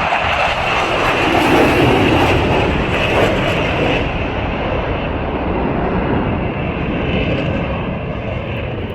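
Jet noise from a Blue Angels F/A-18 Super Hornet (twin General Electric F414 turbofans), loudest about two seconds in and then easing off slightly, as from a passing jet.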